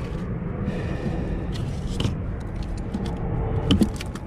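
Crappie being shifted by hand inside a plastic cooler, giving a few short knocks and clicks, one about two seconds in and a cluster near the end, over a steady low rumble.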